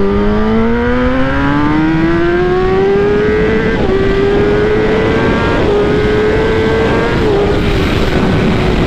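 2016 Kawasaki ZX-10R's inline-four, fitted with an Akrapovič exhaust, accelerating hard through the gears: the engine note climbs in pitch, drops briefly at upshifts about four, five and a half and seven seconds in, then eases slightly lower near the end. Heavy wind rush over the microphone at speed.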